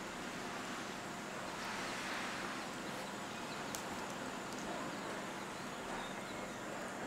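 Steady outdoor background noise with no distinct events, only a soft swell about two seconds in and a faint click near the middle.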